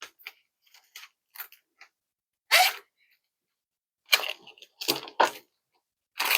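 Packaging crinkling and rustling in short, crackly bursts as items are pulled out of an unboxed package, with a louder crackle about two and a half seconds in and denser handling from about four seconds on.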